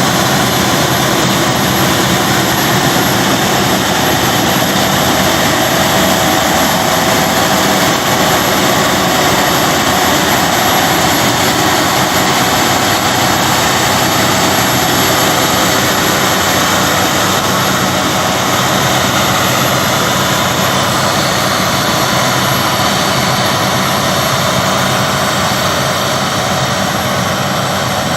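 Claas Lexion combine harvester running steadily while harvesting spring barley: a loud, even machine drone with a few steady whining tones, easing slightly near the end.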